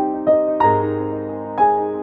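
Background music: soft electric piano playing slow sustained chords, with new notes struck three times.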